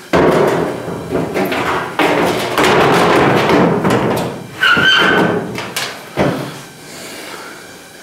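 Large sheet-metal quarter patch panel being handled and pushed into place against a 1970 El Camino's body: the steel scraping, flexing and knocking, with a brief metallic ring about five seconds in.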